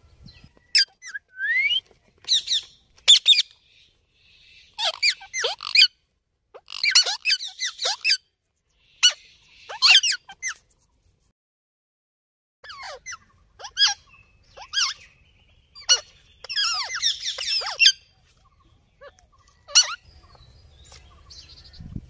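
Indian ringneck parakeets calling in short, separate bursts of high, shrill squawks and chirps with quickly sliding pitch. There are brief pauses between the bursts.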